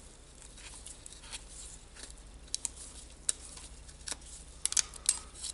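Scattered light metallic clicks and scrapes as a wave washer is worked out of a router's bearing housing, the clicks coming closer together near the end.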